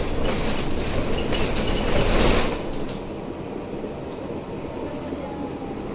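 Running noise inside a moving Mercedes-Benz O530G Citaro G articulated bus: engine and road noise with clicks and rattles from the body. It is loud for the first two and a half seconds, then drops to a quieter, steadier level.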